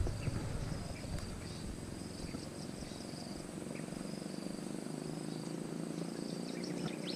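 Insects trilling in a steady high note, with a few faint ticks of rod and reel handling.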